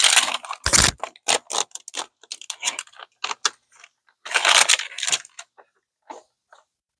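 Crinkly plastic-foil toy blind-bag pouch being handled and torn open: a run of sharp crackles, with a dull bump a little under a second in and a longer tearing rip about four and a half seconds in.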